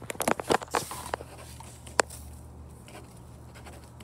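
Knocks and taps of a chair, table and paper being handled as someone settles at a table to write: a quick run of them in the first second, one sharp click about two seconds in, then only a low steady hum.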